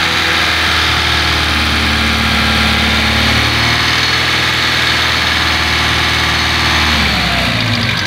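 Car engine idling steadily, heard up close at the front of the engine bay, with the power-steering, water-pump and A/C belts removed; the abnormal noise it had been making has stopped.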